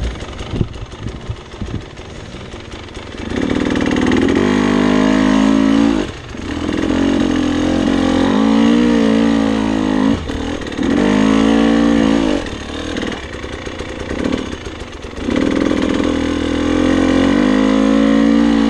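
Dirt bike engine heard from the rider's seat, revving in four long bursts that rise and fall, with short drops toward idle between them. It runs low and uneven for the first three seconds, with a few knocks.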